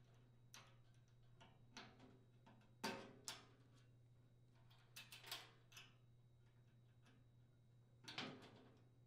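A scattering of faint clicks and small knocks as insulated motor wires are handled and their spade connectors pushed onto the terminals of a blower motor run capacitor, the loudest about three seconds in and another cluster near the end, over a low steady hum.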